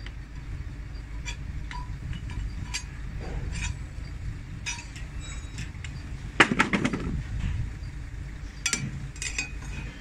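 Metal clinks and clanks as the brake discs and steel plates of a JCB 3CX backhoe axle's wet brake pack are handled and pulled out of the housing. Scattered light clicks are followed by a louder clatter of metal about six and a half seconds in and a shorter one near the end, over a steady low rumble.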